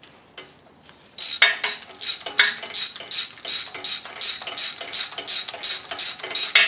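Hand ratchet being swung back and forth on a bolt, its pawl clicking in a steady rhythm of about three strokes a second, starting about a second in.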